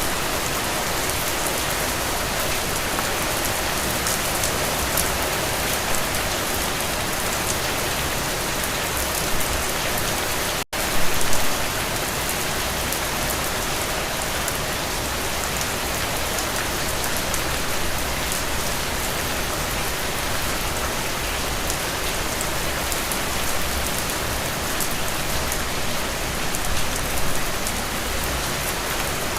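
Steady rain falling, an even hiss with scattered sharper drop hits. The sound cuts out for an instant about eleven seconds in, then comes back briefly louder.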